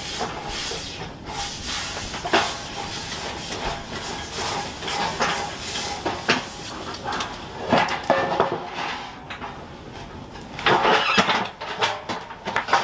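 Small propane cylinder being screwed onto the regulator of an old Coleman propane camp stove: metal clicking and scraping with some hiss. A louder burst of metal clatter about eleven seconds in, as the stove's metal lid is shut.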